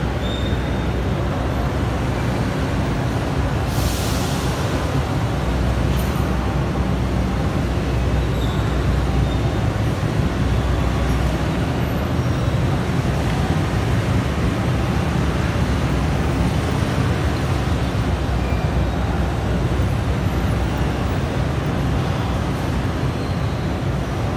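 Railway station concourse ambience: a steady low rumble fills the hall, with a short hiss about four seconds in.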